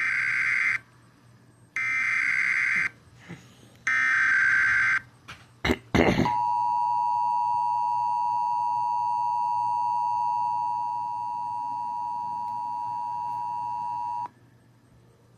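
Emergency Alert System SAME header: three screeching digital data bursts of about a second each, then a click. Then the EAS two-tone attention signal (853 and 960 Hz) sounds steadily for about eight seconds and cuts off, the sequence that opens a new alert.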